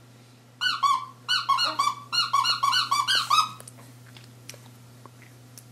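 A quick run of short, high squeaks, about a dozen over three seconds, each one bending in pitch.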